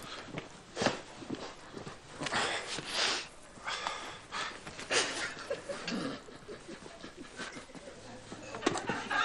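A person breathing hard and snorting in short noisy bursts, with a few sharp knocks, the clearest about a second in and about five seconds in.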